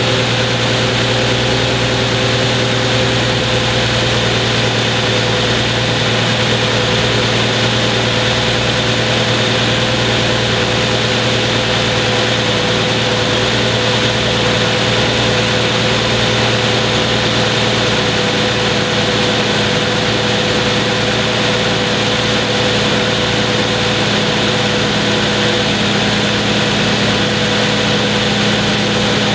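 2015 Infiniti Q70's 3.7-litre V6 idling steadily under the open hood while warming up after a cold start, with the ticking and tapping that the owner finds loud but takes to be normal for these engines.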